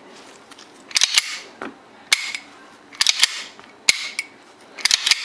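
Sharp metallic clacks from the action of a freshly reassembled Star Model B 9mm pistol being worked. They come about once a second, several in quick pairs.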